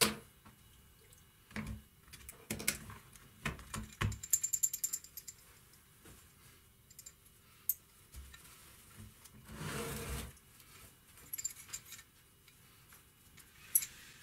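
Small steel parts of a hand vise and the charger's alligator clips being handled: scattered clicks and clinks, a brief metallic jingle about four seconds in, and a short wet rushing noise near ten seconds as parts come out of the electrolysis rust-removal bath.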